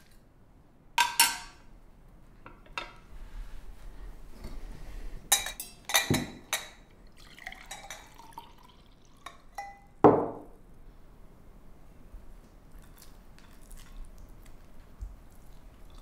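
Tableware sounds of a meal: cutlery clinking and scraping on china plates and glasses. There are a few sharp clinks, with the loudest about ten seconds in.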